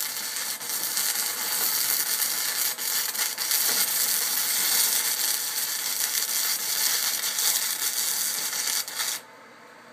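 Stick (arc) welding with a Harbor Freight arc welder: the arc crackles steadily as a thin 3/32-inch rod runs a bead on 1/4-inch steel plate, then cuts off suddenly about nine seconds in when the arc is broken.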